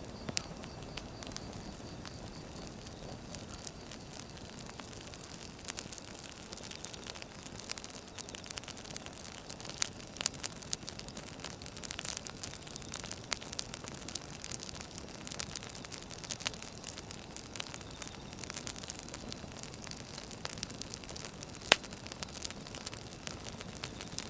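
Firewood burning: a steady hiss with frequent irregular crackles and pops, one sharp pop standing out near the end.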